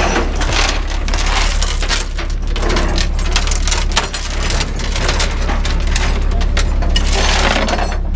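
Steel tow chain clinking and rattling as it is handled and dragged over the rollback's diamond-plate steel deck, in many short irregular clanks, with a steady low drone underneath.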